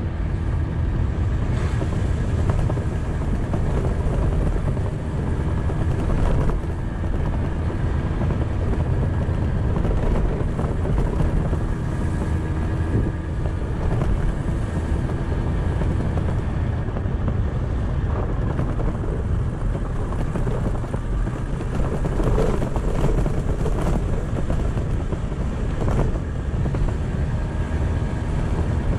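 Kymco's engine running steadily while riding along a gravel road, mixed with a steady low rumble of road and wind noise.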